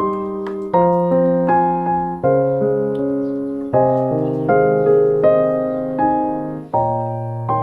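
Background music played on a piano: gentle chords struck about every three-quarters of a second, each note dying away slowly.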